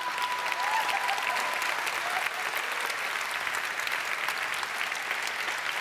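Studio audience applauding, a dense, steady patter of clapping.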